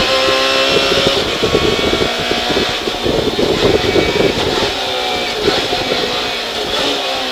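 Fiat Punto S1600 rally car's four-cylinder engine heard from inside the cabin, pulling hard in fourth gear at high revs, then dropping in pitch about five seconds in as the car brakes and shifts down to second for a hairpin.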